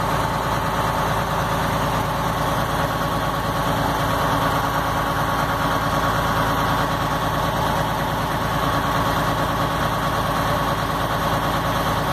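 Diesel truck engine running steadily at idle, driving the water pump, with a steady high whine over the low engine note.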